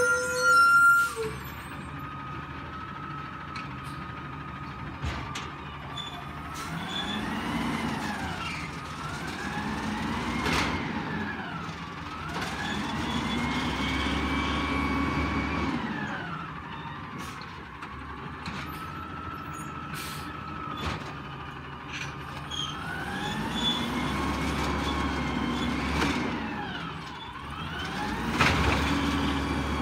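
Peterbilt 320 garbage truck with an Amrep automated side-loader body working carts: the engine revs up and down, and a hydraulic whine rises and falls with it in several slow cycles as the lift arm works. Scattered knocks sound through it, and there is a brief loud burst at the very start.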